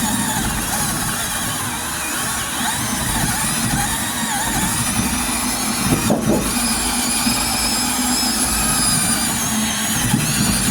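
Power sander running continuously against body filler on a truck door, its motor whine wavering in pitch as it is worked, with a brief dip about six seconds in.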